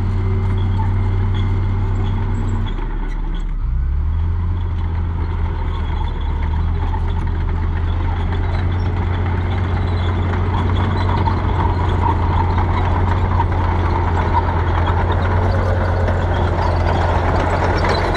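Dump truck's diesel engine running steadily while it tips its load of dirt, its low note breaking off about three seconds in and resuming at a slightly different pitch.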